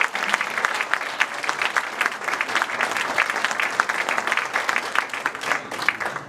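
An audience applauding: dense, steady hand-clapping that stops abruptly at the end.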